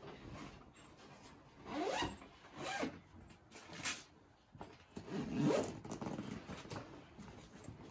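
A zipper on a packed bag being pulled shut in about four rasping pulls, the loudest and longest about five and a half seconds in.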